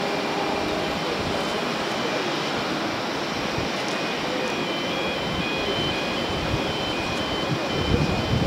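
Steady airport apron noise: an even rush of aircraft engines and ground equipment, with faint short high tones repeating over it. Near the end a diesel fuel truck's engine grows louder as it drives closer.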